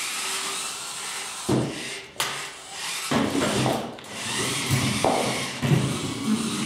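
FTC competition robots driving on the field: electric drive motors running in short, irregular bursts, with wheels rolling and knocking on the plywood ramp and a sharp knock about two seconds in.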